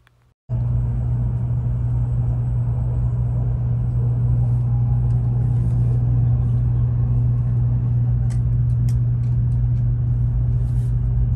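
Steady low rumble of a Shinkansen train running at speed, heard from inside the car. It starts suddenly about half a second in, with a few faint ticks near the end.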